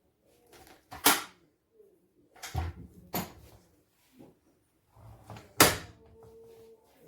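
Sharp metal clacks and knocks of a foldable kick scooter being handled, four in all, with a low rumble and scraping around two of them.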